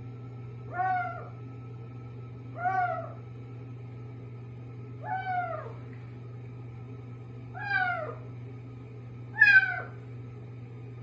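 Kitten meowing five times in short calls that fall in pitch, about two seconds apart, the last one the loudest. The owner says these odd cries are not a sign of constipation or pain.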